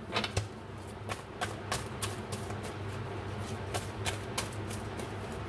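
A deck of oracle cards being shuffled by hand: a string of light, irregular clicks and flicks as the cards slap against each other.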